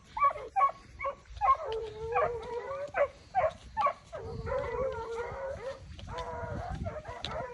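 Hunting dog barking in quick, repeated barks for about four seconds, then breaking into long drawn-out howls.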